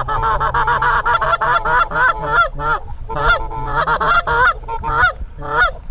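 Canada goose honking and clucking, loud and rapid, several calls a second, with a brief break about three seconds in.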